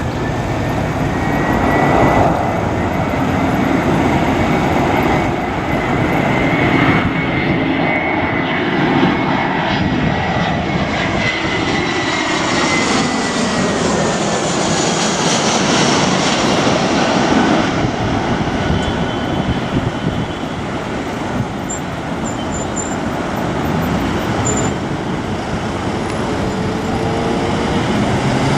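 Airbus A321 jet airliner on final approach, its CFM56 turbofan engines droning with a high whine. The pitch slides down as it passes, about halfway through.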